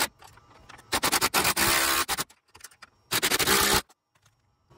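Cordless impact driver hammering a bolt tight on the bracket of a Firestone Ride-Rite air spring, in two bursts: one of a little over a second, then a shorter one, the bolt seating against the frame.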